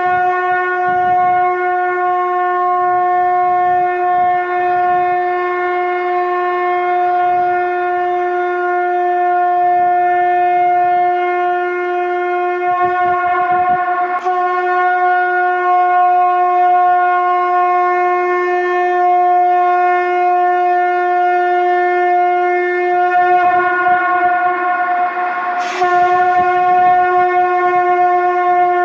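Shankh (conch shell) blown in one long held note of steady pitch. The note is freshly attacked about halfway through and again near the end.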